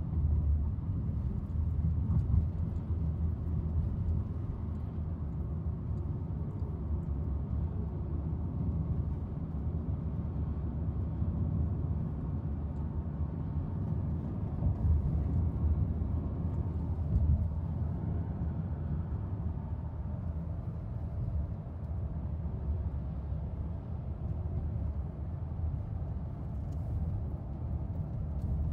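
Steady low rumble of road and engine noise, heard from inside a moving car's cabin.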